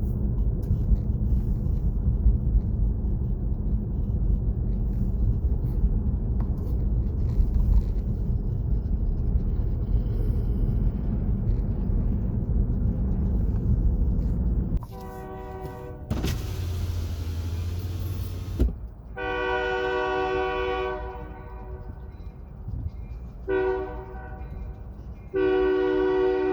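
Steady low rumble, then a Great Lakes Central locomotive's multi-note horn blowing the grade-crossing signal: long blasts, a short one, and a final long one that carries on.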